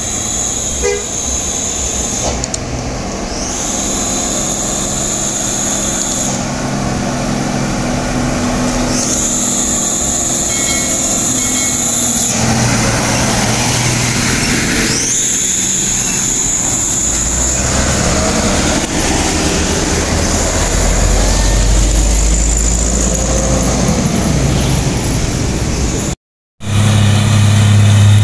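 Diesel engine of a loaded sugarcane trailer truck running as it comes up the hill and passes close by, getting louder in the second half as it goes past. A high-pitched squeal comes and goes several times, each spell lasting a few seconds. Near the end a cut brings in the steady hum of another truck's engine.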